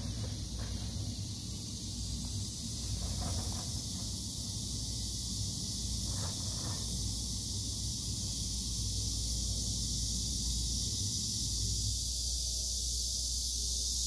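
Cicadas droning in one continuous high-pitched hiss, with a low rumble underneath.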